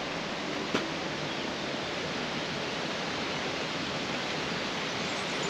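Steady rush of running water, with one short click just under a second in.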